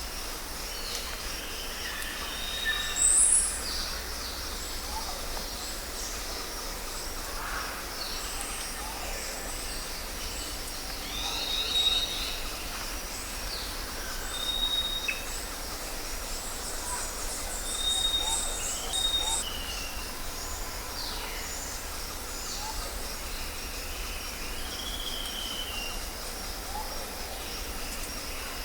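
Jungle ambience: a steady, pulsing insect drone with scattered bird whistles and chirps over it. The loudest is a sharp call about three seconds in, with a fast trill later on.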